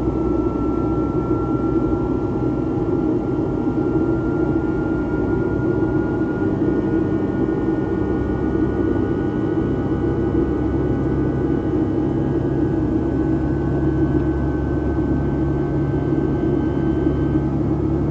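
Cabin noise of a Boeing 757-200 in flight, powered by two Rolls-Royce RB211-535E4B turbofans: a steady rush of air and low engine hum, with a faint whine that slowly rises in pitch.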